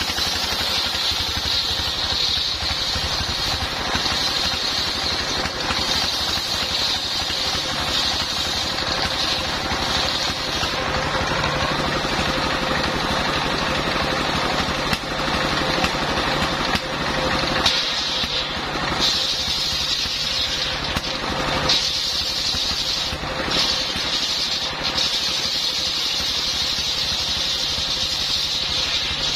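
Homemade circular sawmill driven by a single-cylinder stationary diesel engine, running steadily while its large blade rips along a long log, a high saw whine over the engine. The whine dips briefly a couple of times past the middle.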